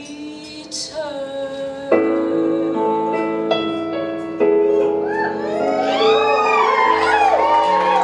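A woman singing long held notes over sustained accompaniment chords. In the last couple of seconds, several audience whoops rise and fall over the music while her final note is held.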